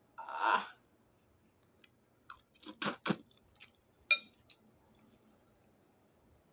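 A person eating ramen noodles close to the microphone: a short slurp near the start, then a cluster of wet chewing clicks around three seconds in and a single light clink with a brief ring about four seconds in.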